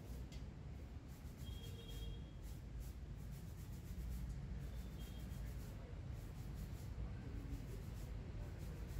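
Faint rubbing and scratching noises over a low steady rumble, with a couple of short, faint high-pitched chirps.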